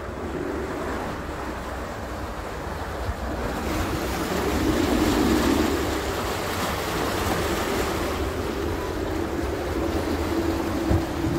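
Small river car ferry under way: its engine runs with a steady low hum while the propeller wash churns the water alongside the hull. The engine and water noise swell about four seconds in, then settle.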